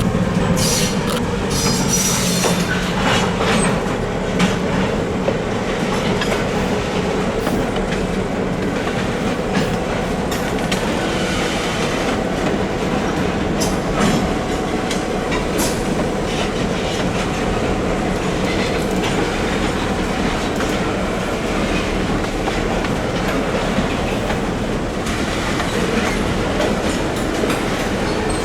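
Freight cars of a train rolling steadily past, with wheels clicking and knocking over the rail joints. In the first second the locomotive's engine tone falls away as it moves off.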